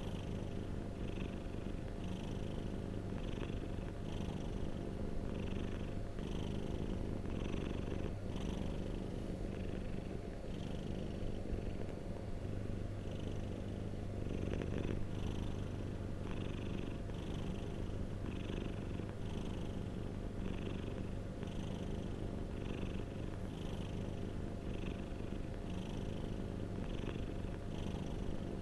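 Domestic cat purring steadily and close up, the purr swelling slightly about once a second with each breath.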